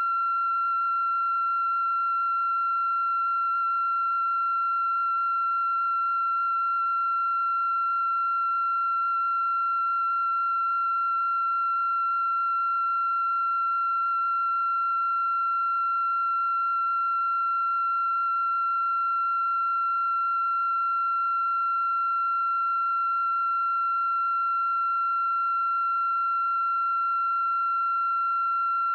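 A steady, unbroken high-pitched electronic tone with faint overtones, holding one pitch without any change.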